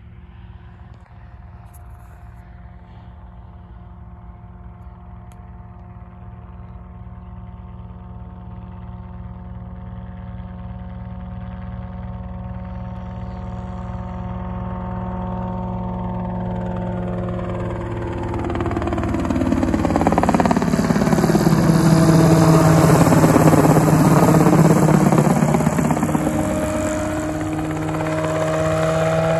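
Homebuilt light helicopter's engine and rotor drone approaching from far off, growing steadily louder until it passes close overhead about two-thirds of the way through, then easing off a little.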